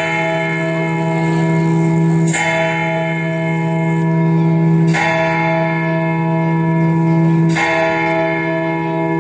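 A bell tolling at one pitch, struck about every two and a half seconds, each strike ringing on until the next. It is the opening of the recorded dance music.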